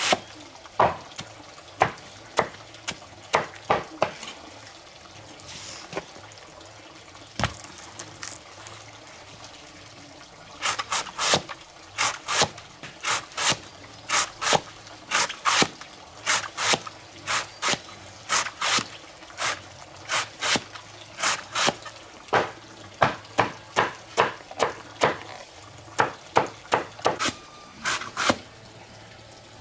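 A knife chopping through a juicy banana tree stem against a wooden log, each stroke a sharp wet crunch. After a run of cuts the strokes pause for several seconds, then go on steadily at about two a second.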